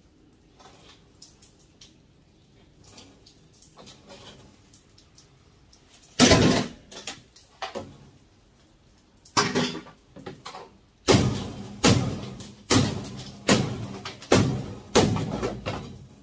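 Furnace sheet metal being struck: one loud bang about six seconds in, a few lighter knocks, then from about eleven seconds a steady run of about seven loud knocks, one every three-quarters of a second, each ringing briefly.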